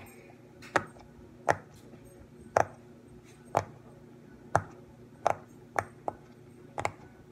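Silicone pop-it fidget toy having its bubbles pressed, giving about nine sharp pops at irregular gaps of roughly a second.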